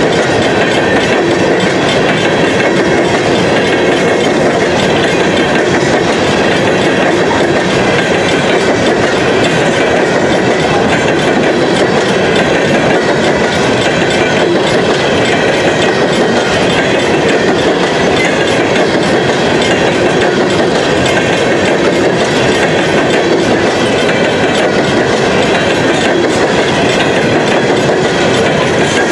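Freight train cars rolling steadily past at a grade crossing, their wheels clacking over the rails with a continuous, even rumble.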